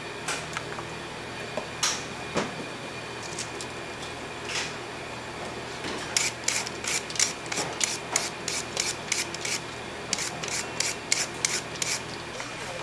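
A steady low hum with scattered clicks, then from about six seconds in a fast run of short scraping strokes, about four a second, lasting some five seconds.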